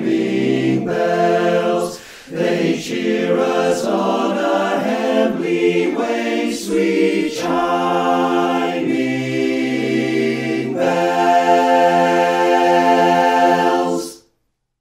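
Men's barbershop chorus singing a Christmas carol a cappella in close harmony, with a short breath pause about two seconds in. It ends on a long held chord that cuts off near the end.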